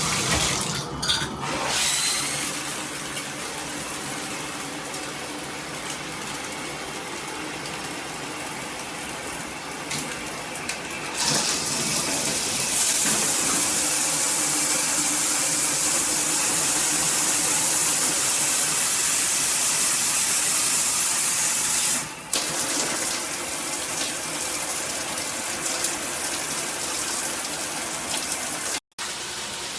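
Water spraying from a shower head, a steady hiss. About eleven seconds in the spray gets louder and brighter for some ten seconds, then drops back, and the sound cuts out for an instant near the end.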